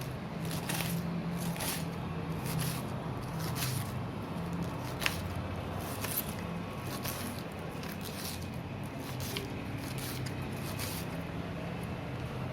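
Kitchen utensil handling while cooking: irregular short scrapes and clicks, with a wet squishy quality, over a steady low hum.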